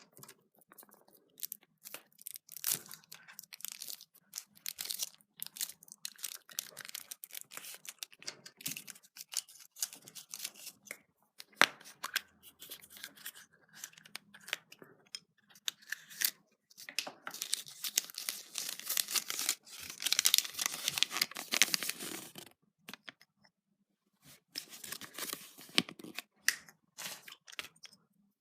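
Foil wrapper of a Kinder Surprise egg being torn and crinkled open by hand: irregular rustling, crackling and small clicks, densest about two-thirds of the way through.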